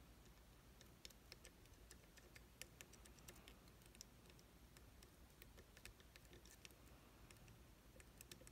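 Faint, irregular small clicks of a metal lock pick working the pins inside an IZIS pump lock, a few ticks a second over a low hum.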